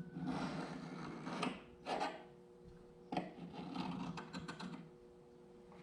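Carbide scribe scratching along a thin steel saw blade, marking out a line in two stretches of strokes, with a few sharp ticks as the tip or straightedge is set down.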